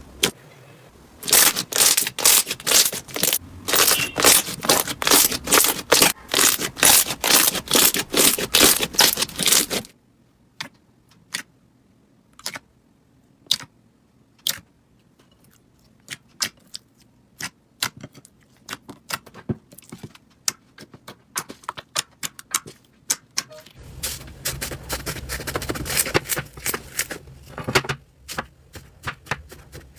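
Slime being squeezed and poked by hand, giving rapid sharp crackles and pops. They come in a dense run for the first ten seconds, thin out to scattered clicks, and grow denser again near the end.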